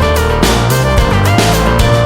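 Loud background music with a steady beat, heavy bass notes and electronic tones.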